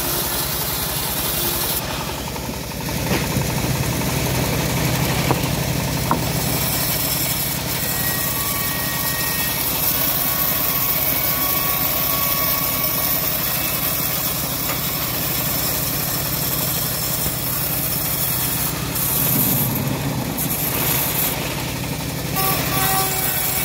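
Homemade bandsaw mill running steadily, its drive humming while the blade saws lengthwise through a teak slab. The high cutting hiss thins briefly about two seconds in and again around twenty seconds in.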